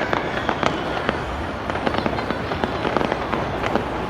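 New Year's fireworks display: a dense, continuous run of overlapping bangs and crackles, several per second.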